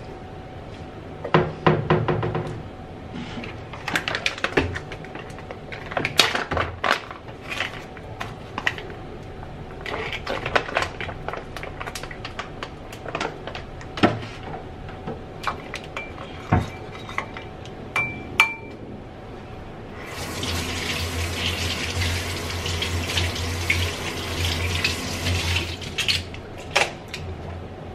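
Dishes and utensils clinking and knocking at a kitchen sink. About two-thirds of the way in, a tap runs steadily for about six seconds, then stops.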